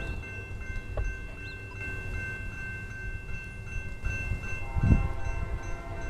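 Faint steady high ringing tones, then about three-quarters of the way in a distant train horn starts: a held chord of several tones that carries on to the end. A low thump comes just after the horn starts.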